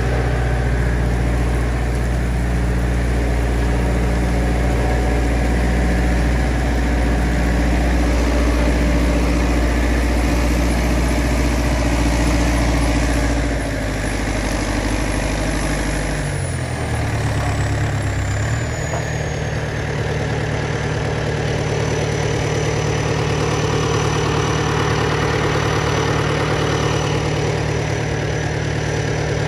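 Diesel engine of a 914 Turbo tractor running steadily while pulling a subsoiler through the ground. About halfway through its note changes and settles again, and a faint high whistle slides down in pitch.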